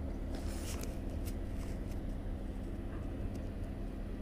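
Rustling and scraping handling noise right at the camera, a cluster of brief scrapes in the first second or so and a few more after, over a steady low hum.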